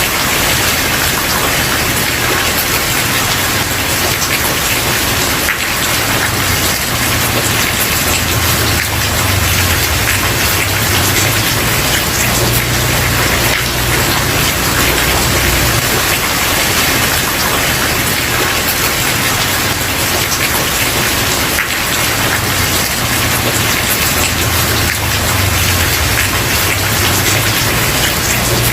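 Steady rain falling on a wooden porch, a dense even patter of drops, with a low rumble coming and going underneath.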